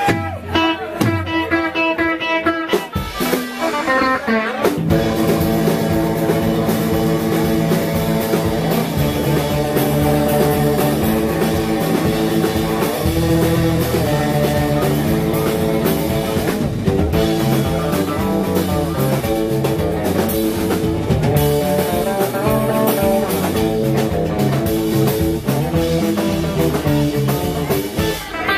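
Instrumental surf rock band playing live: reverb-heavy Fender Jaguar electric guitars over bass and drums. It opens with sparser picked guitar lines, and the full band comes in with a heavier low end about five seconds in.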